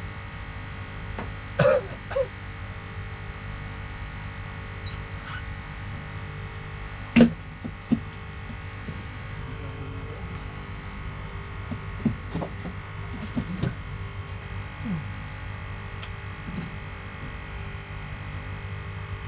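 A steady mechanical hum holding several level tones, with a few scattered short knocks and clicks; the loudest is a sharp knock about seven seconds in.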